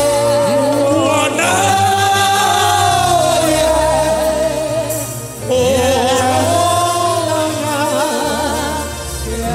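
Live gospel singing through microphones: several voices sing long held notes with vibrato over a steady bass line, dipping briefly about halfway through.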